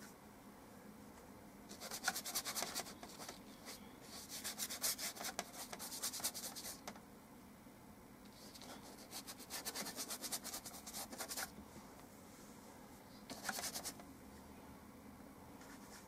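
Paintbrush scrubbing oil paint onto textured paper: a scratchy rubbing that comes in four bursts of quick back-and-forth strokes.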